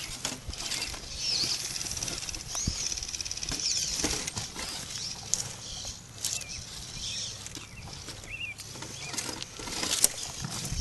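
Electric RC rock crawler's motor and gears whining, rising and falling with the throttle as it crawls over boulders, with scattered clicks and knocks of its tyres and chassis on the rocks.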